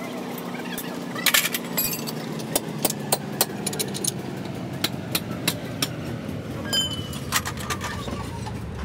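Steel bars clinking and knocking against a truck wheel hub, with a quick cluster of sharp metal clanks about a second in, then scattered lighter clinks. A steady low hum runs underneath.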